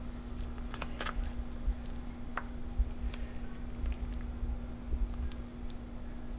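A serving spoon scooping syrupy peach cobbler out of a baking dish: soft wet squishing of fruit and crust, with a few sharp clicks and scrapes of the spoon against the dish, mostly in the first half. A steady low hum runs underneath.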